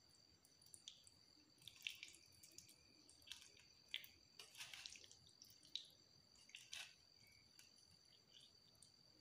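Bare hand squeezing and mashing soft roasted eggplant, boiled potato and tomato in a steel bowl: faint, irregular wet squelches. A steady high-pitched tone runs underneath.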